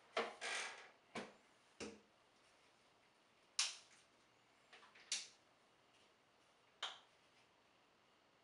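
Small handling noises at a bathroom sink and mirrored medicine cabinet: a scattered series of about six short clicks and knocks of toiletries and the cabinet door, the sharpest about three and a half seconds in.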